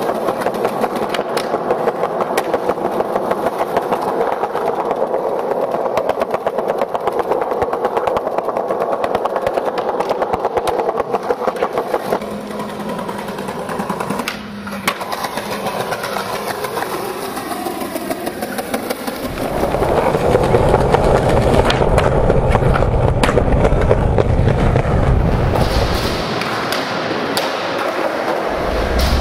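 Skateboard wheels rolling over concrete, a steady rough rumble, which gets deeper and louder about twenty seconds in.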